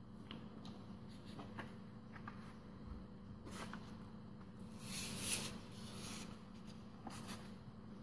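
Faint rustling and crinkling of a sheet of origami paper handled, unfolded and refolded by hand, with scattered small ticks and a louder sliding swish about five seconds in, over a steady low hum.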